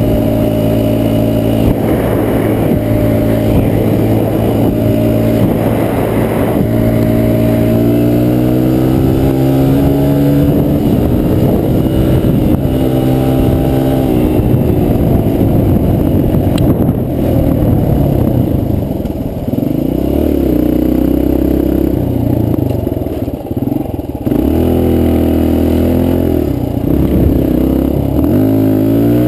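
Suzuki dirt bike engine heard on board while riding, its pitch climbing and dropping as the bike speeds up and slows. Past the middle the engine runs slower, picking up again in several short surges of throttle.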